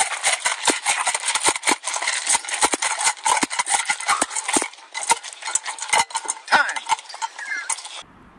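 Puppy eating dry kibble from a stainless steel bowl: a rapid, continuous clatter of kibble and the metal bowl. It cuts off suddenly near the end.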